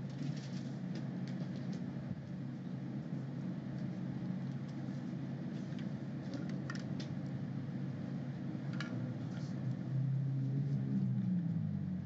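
Steady low hum of a room's ventilation, with a few soft clicks and rustles of Bible pages being handled.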